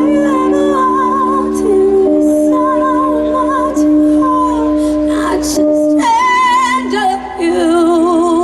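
Live rock band playing between sung lines: sustained chords under a lead melody with wide vibrato, which swells into a brighter, stronger passage about six seconds in.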